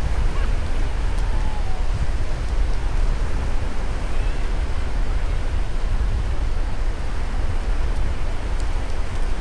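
Sea surf washing steadily on a beach, with wind buffeting the microphone in a deep, continuous rumble.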